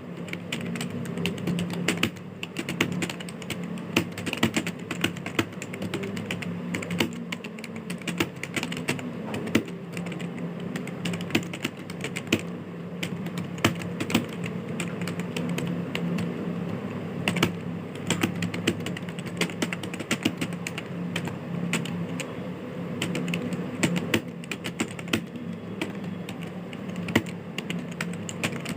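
Continuous fast typing on a computer keyboard, a dense, irregular run of key clicks, over a steady low hum.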